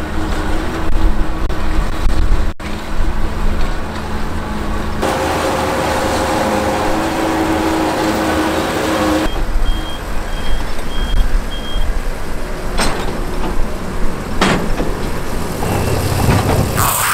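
Fendt tractor and McHale Fusion baler-wrapper running while baling grass, a steady engine and machinery sound that changes abruptly twice. About ten seconds in comes a run of short high beeps, then a couple of sharp clicks.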